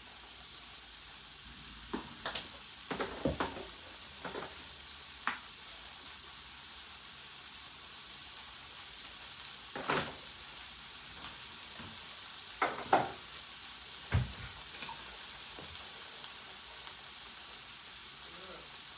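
Mixed vegetables sizzling in butter in a frying pan: a steady high hiss, broken by a dozen or so short knocks and clicks as they are stirred and seasoned.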